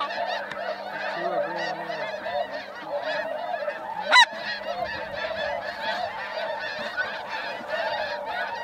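A large flock of snow geese calling, a continuous din of many overlapping honks, with one brief sharp knock about four seconds in.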